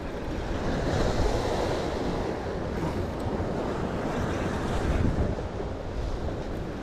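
Ocean surf washing over rocks, a steady rushing, with wind buffeting the microphone.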